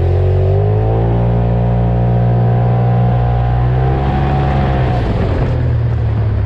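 Polaris RZR Turbo side-by-side's engine under throttle while driving: its pitch climbs in the first second, holds steady, then falls away about four to five seconds in as it turns rougher.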